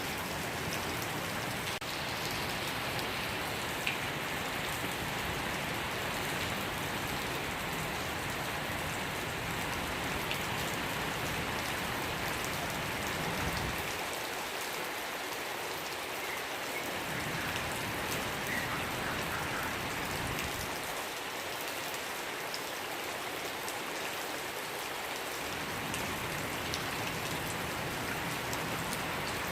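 Steady rain falling and pattering on surfaces, an even hiss of drops that holds at the same level throughout.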